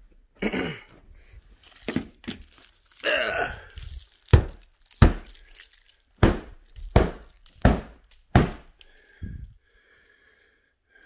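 Knocking and prodding at a wood plank ceiling to find a weak spot: some scraping at first, then a run of about six sharp knocks, spaced a little under a second apart. The ceiling doesn't give; it is tough.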